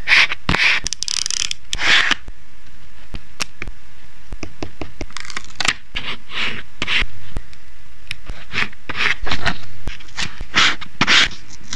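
Washi tape and a clear plastic sticker sheet being handled close up: short irregular rasps of tape peeling, tearing and being rubbed down onto paper, with crinkles of the plastic sheet. The rasps bunch up in the first two seconds and again near the end.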